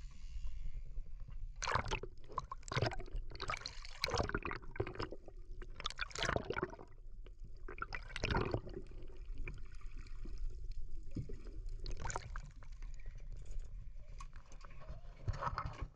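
Sea water gurgling and sloshing over a camera dipped under the surface, with several loud rushes of water as it plunges in and moves through the sea, over a steady low rumble.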